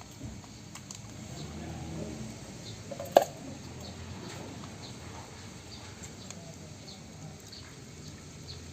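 Kittens making small scattered ticks and scuffling patters, with one sharper click about three seconds in.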